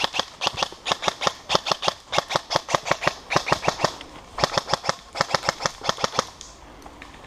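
Airsoft electric gun firing in bursts of rapid shots, about eight a second, with short pauses between bursts; the firing stops about a second before the end.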